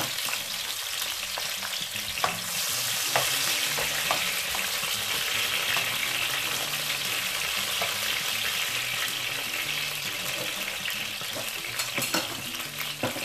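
Chopped red bell pepper sizzling in hot vegetable oil in a nonstick frying pan: a steady, even hiss, with a few light clicks from a spatula stirring it against the pan.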